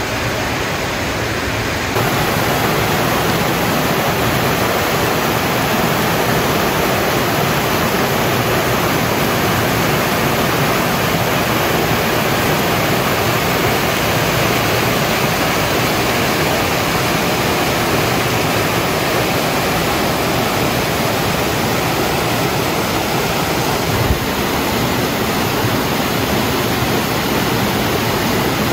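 A waterfall pouring over rock into a pool, a steady, loud rush of water. It gets louder about two seconds in.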